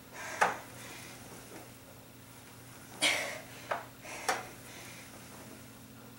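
Ab rollouts with an ab wheel: a forceful exhale about three seconds in, one per rep, and light plastic clicks and knocks from the wheel and its handles about half a second in and twice more around four seconds.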